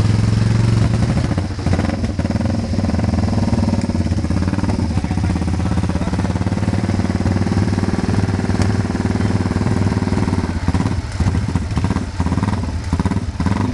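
Classic motorcycle engine running steadily, its note dipping a few times near the end.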